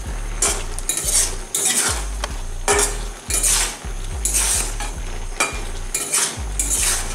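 A spatula scraping and stirring sliced ash gourd in an aluminium kadai, about one scrape a second, with the simmering vegetables sizzling lightly.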